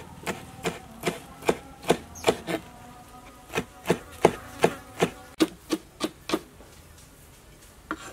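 Large kitchen knife chopping black fungus on a wooden cutting board: a quick, even run of blade strikes on the board, about two and a half a second, with a short pause about a third of the way in. The chopping stops a couple of seconds before the end, with one last strike near the end.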